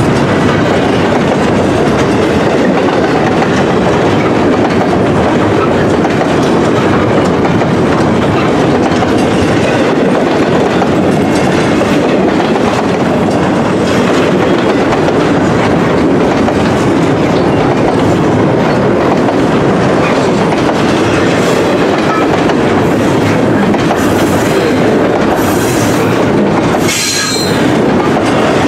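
Loaded double-stack intermodal well cars rolling past: a steady, loud rumble with the clickety-clack of wheels over the rail joints. Near the end come a few brief high squeals from the wheels.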